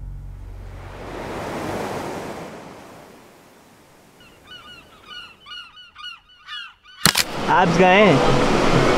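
Rush of sea water swelling and fading away, then a string of about eight short, quick bird calls. About 7 s in, a sharp click cuts to a louder steady hiss of outdoor ambience, with a voice briefly near the end.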